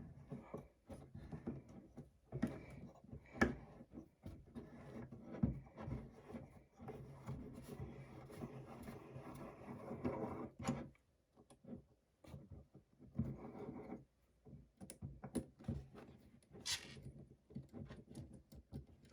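Faint, irregular clicks, knocks and rubbing of a handheld sight pusher tool as its screw is turned by hand, pressing the rear sight sideways out of the Glock 20 slide's dovetail.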